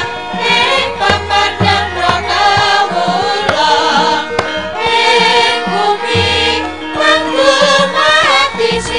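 Javanese gamelan playing with voices singing along and a kendang drum beating low strokes, the accompaniment music of a wayang kulit shadow-puppet play.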